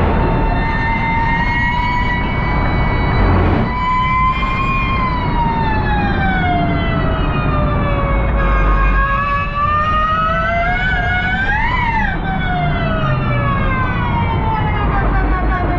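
Electric drivetrain of a Tesla-powered race car whining loudly in the cabin, the pitch falling as the car slows for corners and climbing as it accelerates, with a sharp peak and quick drop about twelve seconds in and another rise near the end. Under it a steady road and tyre rumble.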